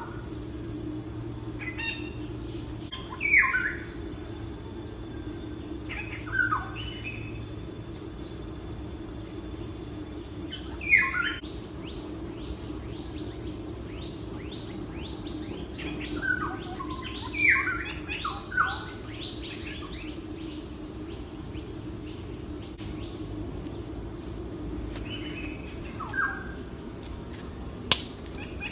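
Birds chirping in scattered short calls over a steady high insect buzz, with a low steady hum underneath and a single sharp click near the end.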